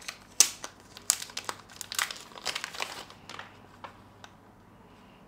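Packaging crinkling and rustling as the battery set is unwrapped by hand, a run of sharp crackles that dies away after about three and a half seconds.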